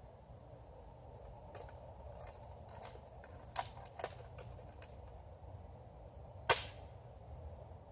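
Nerf blaster being worked and fired: a scatter of light clicks and snaps, then one sharp, much louder shot about six and a half seconds in.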